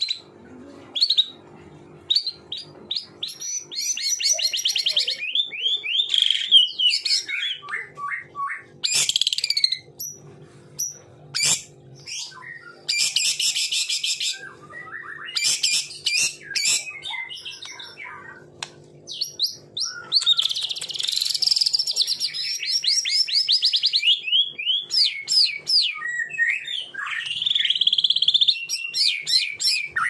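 White-rumped shama (murai batu) singing a long, varied song: clear sweeping whistles mixed with fast rattling runs of repeated notes, in phrases broken by short pauses. A faint low hum lies underneath.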